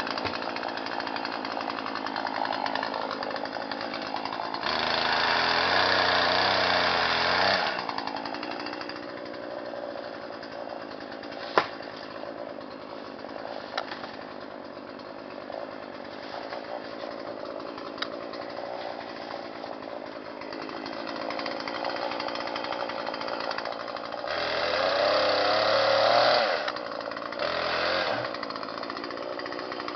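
Two-stroke chainsaw idling, revved up to full speed for a few seconds about five seconds in and again near the end. There is a single sharp click midway.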